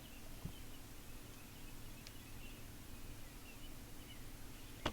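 Quiet room tone with a low steady hum, scattered faint high chirps, a couple of small clicks, and one sharper click near the end.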